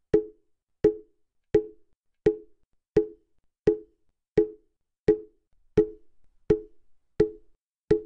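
Mokugyo, the Buddhist wooden fish drum, struck at a slow, perfectly even beat of about three strokes every two seconds. Each stroke is a short wooden knock that dies away quickly.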